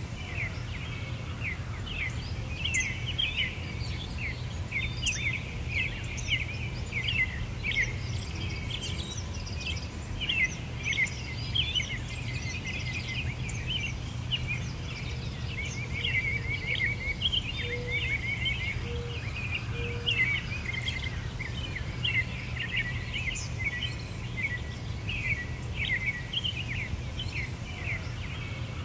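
Many small birds chirping and trilling continuously in a woodland chorus, over a steady low hum.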